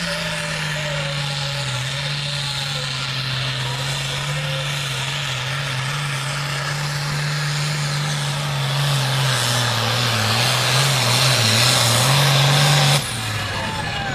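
Limited Pro Stock diesel pulling tractor running hard down the track under load, a steady engine note that sags a little in pitch and grows louder over the later seconds, then drops away suddenly near the end.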